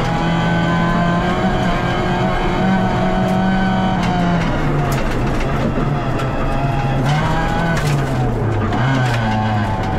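VW Polo rally car's engine heard from inside the stripped cabin at stage speed on a dirt stage, its pitch dropping about four seconds in, climbing briefly near seven seconds and falling away again, over a steady rush of road noise. A few sharp knocks cut through around five and eight seconds.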